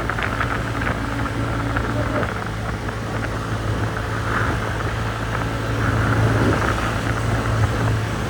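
TVS Ntorq 125 scooter's single-cylinder engine running steadily while riding along, a constant low hum.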